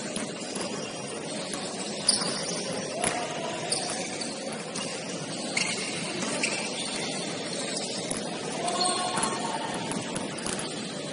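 Basketball game sounds in a gym: echoing background voices and play noise, with a few sharp thumps of the ball bouncing, the loudest about two seconds in.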